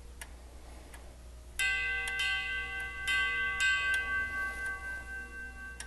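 Grandfather clock's chrome tubular chime struck several times with a hard, aged rubber pencil eraser, starting about a second and a half in. The tube rings on with bright, tingy high overtones: the hard striker brings out the high-frequency resonance that hardened leather hammer pads give, which is why the clock's chimes sound poor.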